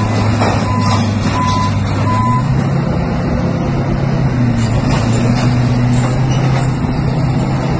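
Armored bulldozer's diesel engine running under load while its blade scrapes and clatters on the street surface. Its reversing alarm beeps about every two-thirds of a second for the first couple of seconds, then stops, and the engine pitch rises a little.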